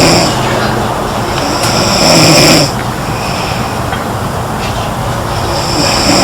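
A girl snoring: loud snores of about a second each, coming roughly every four seconds, over a steady background noise.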